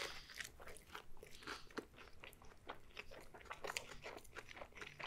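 A person biting into and chewing a flatbread wrap: quiet, irregular soft crunches and wet mouth clicks.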